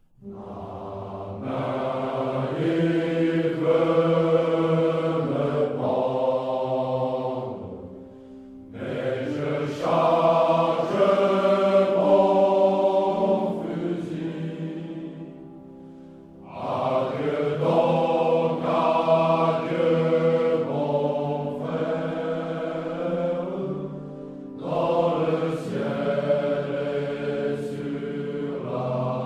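Slow choral chant music: voices holding long notes in phrases of about eight seconds, with brief dips between them.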